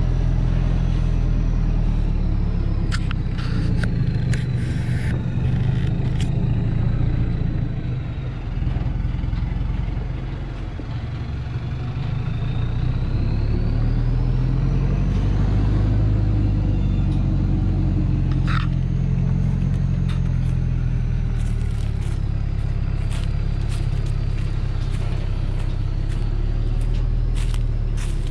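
Heavily loaded Thaco Foland truck's diesel engine labouring at low speed, its revs rising and falling, with a thin high whine that glides up and down. Scattered sharp clicks and knocks come a few seconds in, again a little past the middle, and through the last part.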